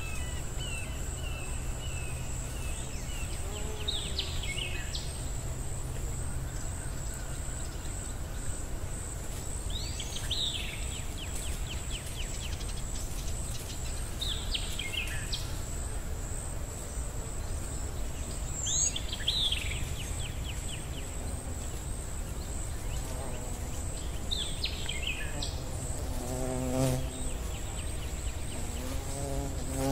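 Nature ambience: a steady high insect drone, with a bird's quick falling chirp about every five seconds.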